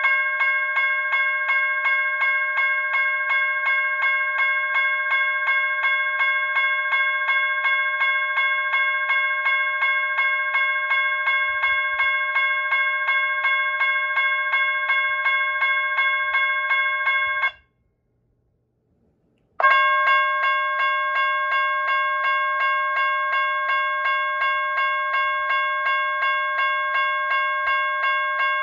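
Associated Signal Company rectangular sheet-metal electronic railroad crossing bell sounding its GS Type 1 electronic tone, a rapid, evenly repeated ringing ding. It stops about 17 seconds in and starts again about two seconds later.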